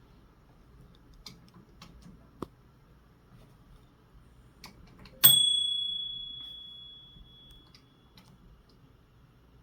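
A few light clicks from the controls of a 1982 Panasonic NE-5730A microwave, then a single loud ding of its timer bell about five seconds in, ringing out over about two seconds.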